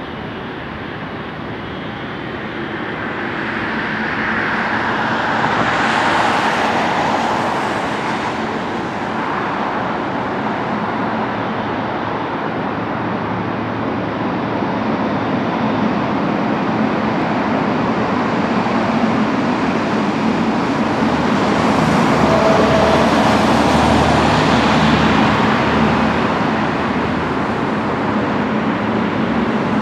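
Boeing 777-300ER's two General Electric GE90-115B turbofans running at low taxi thrust as the airliner taxis past, a steady jet rumble and hiss that swells twice.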